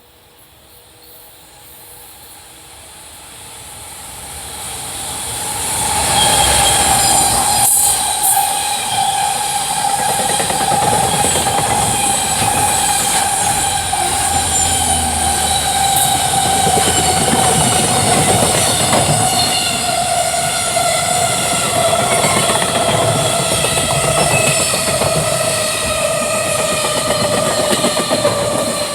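Freight train passing at high speed: it approaches and grows louder over the first six seconds, then runs past with a steady rush and clatter of wheels on rail and a high ringing whine that sinks slowly in pitch.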